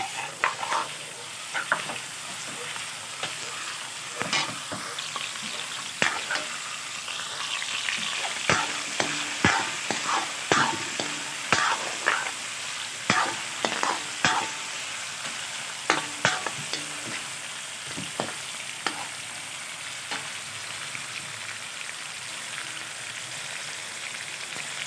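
Chicken pieces frying in hot oil in a metal wok, a steady sizzle, while a metal spatula stirs them, scraping and clacking against the wok. The clacks come thickest in the middle stretch.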